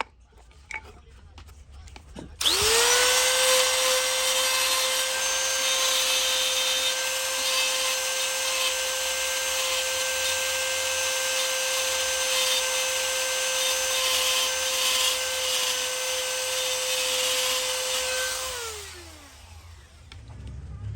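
High-speed electric power tool working wood: it starts about two seconds in, spins up quickly to a steady high whine over a rough rushing noise, runs for about sixteen seconds, then winds down with a falling pitch near the end.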